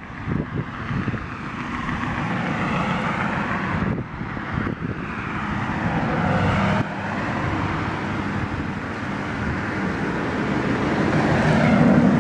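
Road traffic: vehicles driving past on a street, their engine and tyre noise swelling and fading, loudest near the end.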